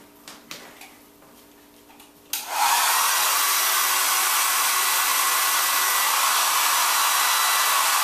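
Handheld hairdryer switched on about two seconds in and running steadily, a quite loud, even rush of blown air with a faint whine in it; it is switched off at the very end. A few faint knocks come before it starts.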